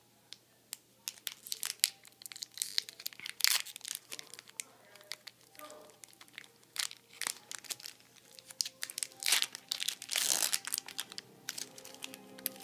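The foil wrapper of a Pokémon trading card booster pack crinkling and crackling in the hands as it is torn open. There is a longer tearing rip about ten seconds in.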